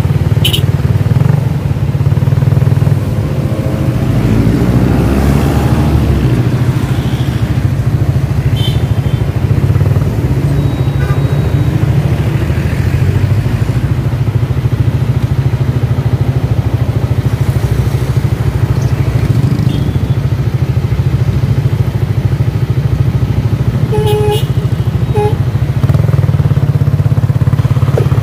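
Motorcycle engine running at low speed in city traffic, a steady low drone. Another vehicle revs up about five seconds in, and two short beeps sound near the end.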